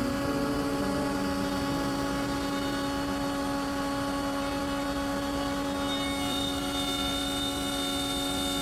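Electric power tool motor running steadily under load, a continuous whining drone with a steady hum.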